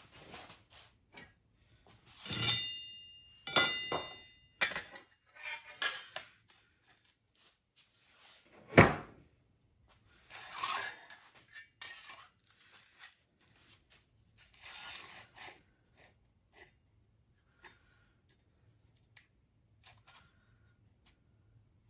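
A hammer striking a sheet-steel patch panel held over an anvil, in irregular metallic clanks, some ringing on briefly, with handling clatter between blows. The panel is being bent down along a marked line.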